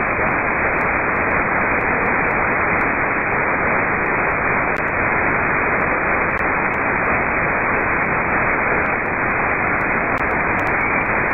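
Steady static hiss from a software-defined radio receiver (RTL-SDR dongle) in upper-sideband mode, with no station on the tuned frequency.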